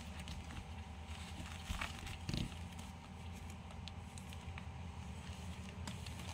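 Faint handling noise, with light rustles and a couple of soft bumps about two seconds in, as newborn bichon puppies are handled on a cloth pad. A steady low hum runs underneath.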